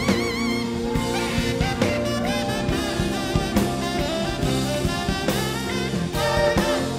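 Live jazz-fusion band: a tenor saxophone solo over drum kit. A held note with wide vibrato breaks off just after the start, followed by fast runs.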